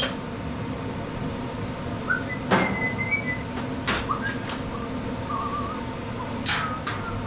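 A few sharp clicks and knocks as the mower's drive cable and parts are handled, over a steady background hum, with short high chirps in between.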